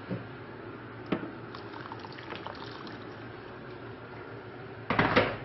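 Water being added to a pot of tomato sauce and stirred in with a wooden spoon, with a few light knocks and a brief louder burst of liquid noise near the end.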